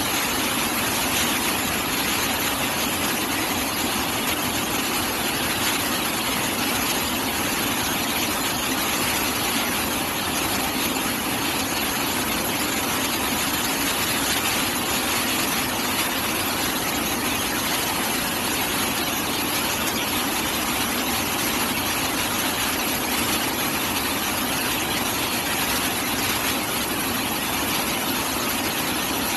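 DTH rock drilling rig running, a steady, unbroken mechanical noise with no separate knocks.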